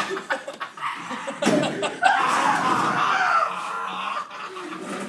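Loud wordless vocal outbursts from a person, with a longer drawn-out stretch from about a second and a half in, fading near the end.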